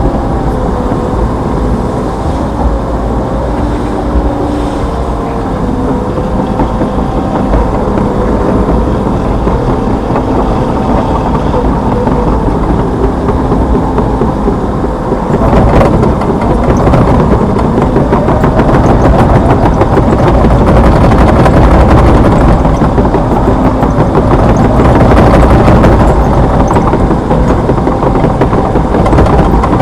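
Hitachi Zaxis 210F excavator's diesel engine running steadily as the machine works, with a wavering whine over it; it gets louder and rougher about halfway through.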